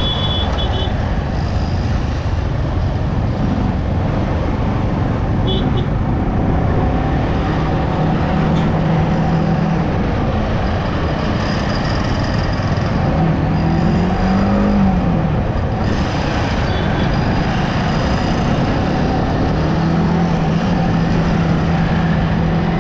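Yamaha R15M motorcycle riding at a steady speed: the single-cylinder engine drones under a constant rush of wind and road noise, its pitch rising and falling once about two-thirds of the way through. A few short high beeps sound briefly near the start and twice later.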